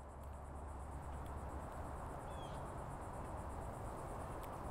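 A faint, steady chorus of insects: a rapid, high-pitched pulsing trill over a low background hum.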